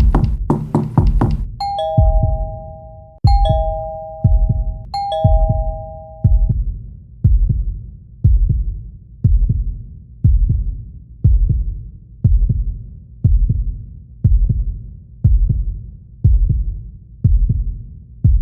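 A two-tone ding-dong doorbell chime rings three times in quick succession, each time a higher note falling to a lower one. Under it runs a heartbeat sound effect, a deep thud about once a second, which follows a busier pounding beat in the first second and a half.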